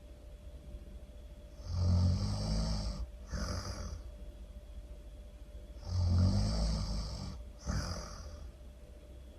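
A person snoring: two breaths about four seconds apart, each a rumbling snore on the in-breath followed by a shorter breathy out-breath.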